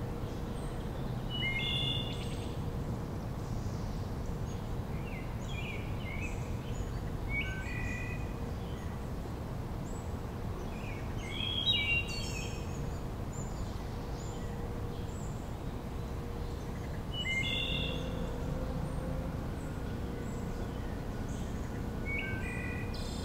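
Wood thrush singing: short phrases every few seconds, the loudest about halfway through, over a steady low background rumble.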